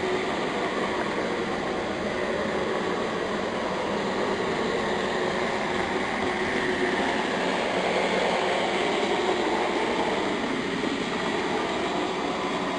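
Model trains running on the layout track: a steady rolling and mechanical running noise from the locomotives and cars.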